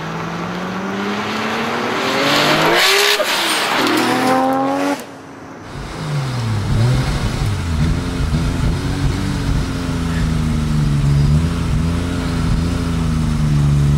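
Nissan Skyline R33 GT-R's twin-turbo straight-six accelerating hard toward and past, its pitch climbing steadily for about five seconds before a sudden cut. After a short dip, a car engine is heard from inside the cabin, its pitch rising and falling repeatedly with the throttle.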